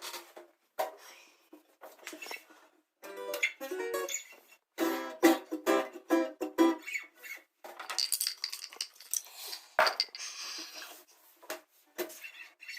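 Guitar plucked in short broken runs of notes with pauses between them, like noodling or trying out a passage, not a continuous piece. A hissy, scratchy stretch of string or handling noise comes about eight seconds in.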